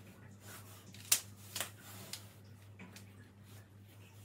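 Fresh willow stems being bent and woven around a wreath hoop: a few sharp light clicks and soft rustles of the rods rubbing, the loudest click about a second in.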